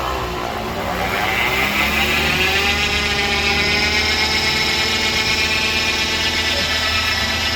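A 2018 Nissan Rogue driving with its rear differential whining: a pitched whine with many overtones that rises over the first two or three seconds and then holds steady. The whine is the differential fault being inspected for a warranty claim.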